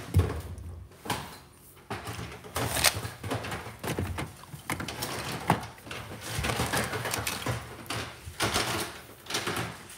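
Irregular knocks, clicks and rustling of plastic toys being handled and put away, with a sharper knock at the start and several more scattered through.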